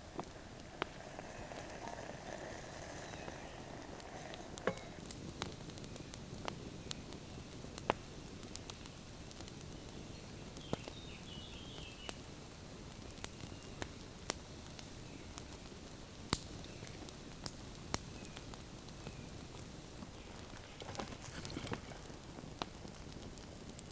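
Wood campfire crackling, sharp pops and snaps coming irregularly over a steady hiss of burning. Near the end, sticks are handled and laid on the fire.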